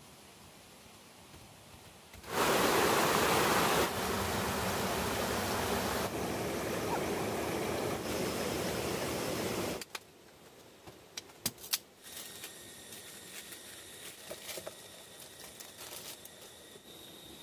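Rushing water of a stream, loud and steady for about seven seconds with a few abrupt changes in level, then cut off. Afterwards a few sharp clicks and faint insects buzzing remain.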